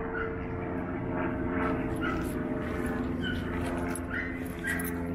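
Dogs whining and giving short yips, several brief high-pitched cries spread across a few seconds, over a steady low hum.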